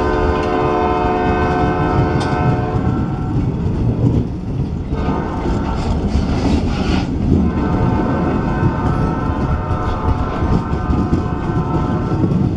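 Freight train cars rolling past with a steady rumble and wheels clacking over the rail joints, while a locomotive horn sounds two long blasts: one for the first few seconds, and a longer one from a little past halfway to near the end.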